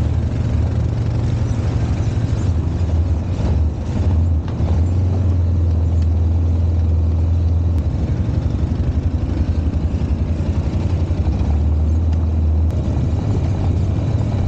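ATV engine running steadily at trail speed, a continuous low drone, with a few knocks and rattles from the machine going over rough, rutted ground about three to four seconds in.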